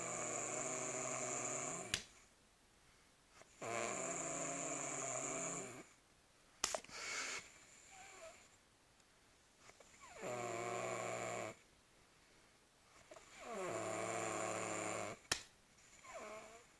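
Snoring: four long, pitched snores of one and a half to two seconds each, a few seconds apart. Between them come shorter, softer breaths and a few sharp clicks.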